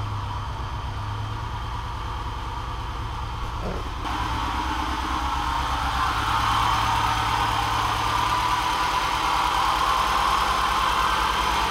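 Honda Civic four-cylinder engine running steadily after start-up on a new Hondata coil pack ignition, growing a little louder about four seconds in. The owner says the engine still has the misfire that the coil pack kit has not cured.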